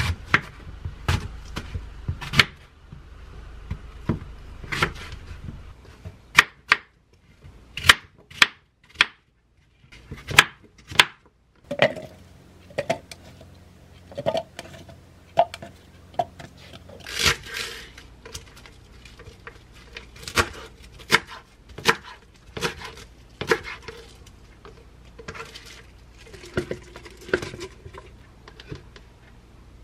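Knife cutting an apple and then kale leaves on a wooden cutting board: an irregular string of sharp knocks as the blade strikes the board, with apple chunks dropped into a blender jar.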